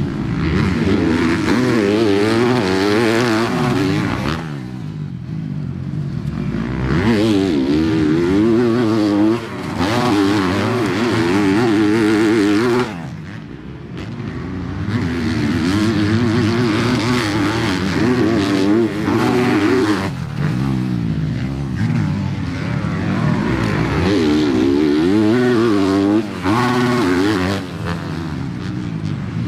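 Four-stroke motocross bike engines revving hard on a dirt track, the pitch climbing and falling with the throttle, with several brief drops where the rider backs off.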